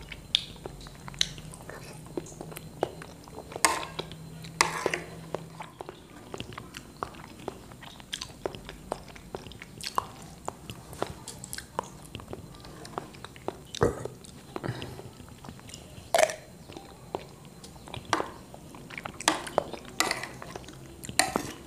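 Close-up eating sounds of soft chocolate pudding with vanilla custard: wet mouth smacking and chewing, with scattered sharp clicks, some from the metal spoon tapping and scraping the plate.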